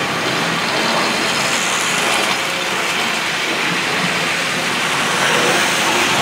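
Several Tri-ang Hornby OO gauge model trains running together on metal track: a steady rattling run of small wheels on rail and electric motors, a little louder near the end as a train comes close.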